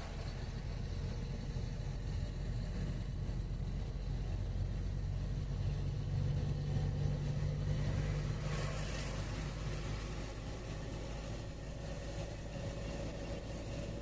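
Vehicle engine and tyre noise heard from inside the cab while driving, a steady low drone that swells for a few seconds in the middle. About nine seconds in there is a brief rush of noise.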